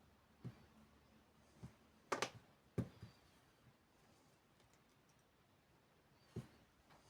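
Scattered sharp clicks and taps of small repair tools against a phone's parts during disassembly, with a quick cluster about two seconds in and a last click near the end.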